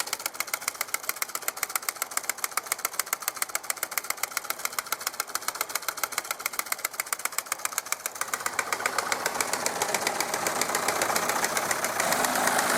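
Wilesco D24 toy steam engine running under steam, its exhaust chuffing rapidly and evenly at about seven beats a second. After about eight seconds a hiss builds and grows steadily louder while the beats blur together.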